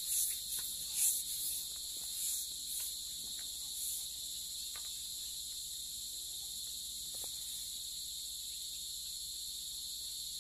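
A steady chorus of insects chirring at dusk, a continuous high shrill in several layers. A few light clicks and rustles come in the first few seconds.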